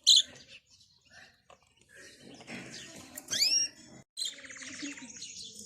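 Small birds chirping and twittering: a loud chirp at the start, a few short rising sweeping calls about three seconds in, then a brief drop-out and steady high twittering to the end.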